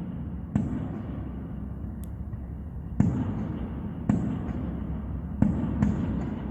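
Aerial fireworks shells bursting: five sudden booms, about half a second in, at about three and four seconds, and two close together near the end. Each boom trails off in a low rumbling echo.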